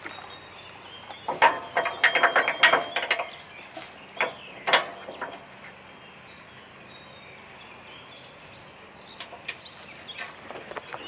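Steel support jack of a cable drum trailer being set and adjusted by hand: a burst of rapid ratchet-like metal clicking, then two sharp clanks, then a quiet stretch with a few faint ticks near the end.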